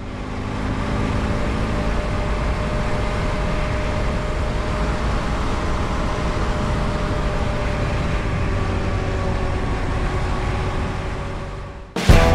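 Motorcycle engine running at a steady cruising speed, with wind and road noise, heard from a camera on the bike. It fades in at the start and fades out near the end, where music starts suddenly.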